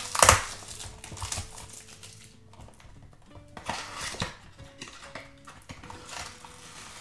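A small cardboard box being opened by hand: a sharp tearing rip right at the start as the glued end flap is pulled free, then scattered scrapes and crinkles of cardboard as the flap is bent back.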